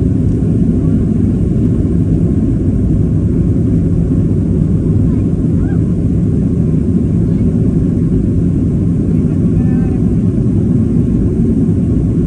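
Steady low rumble of a jet airliner's engines and rushing air, heard inside the passenger cabin as the plane climbs out after takeoff.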